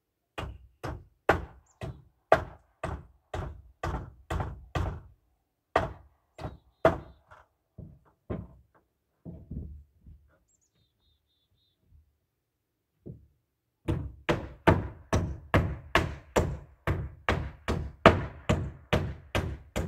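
Hammer blows on wooden gable framing: runs of sharp, steady strikes about two to three a second, a pause of a few seconds past the middle, then a quicker run near the end.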